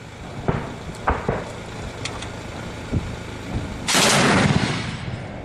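Scattered single gunshots fired at a helicopter, then about four seconds in a louder blast of noise lasting about a second.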